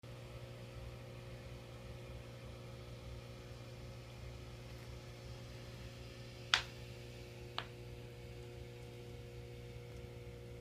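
Steady low hum of running reef-aquarium equipment (pumps), faint and even. Two sharp clicks a little past the middle, about a second apart, the first louder.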